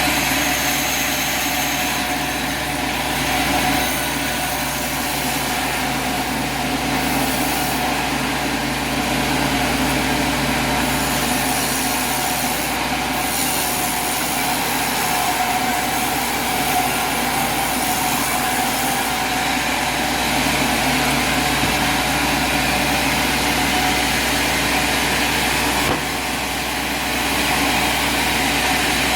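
Sawmill engine running steadily: a constant mechanical drone with several steady tones, dipping briefly in level near the end.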